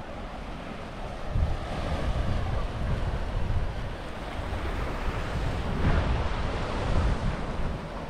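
Small waves breaking and washing on the shore, with wind buffeting the microphone in uneven gusts.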